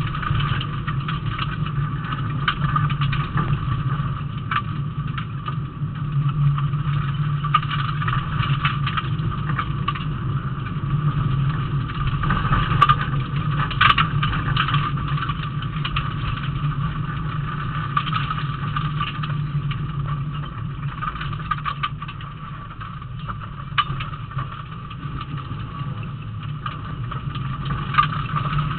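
Rally car engine running steadily as the car drives along a dirt road, heard from inside the cabin, with scattered clicks and rattles throughout.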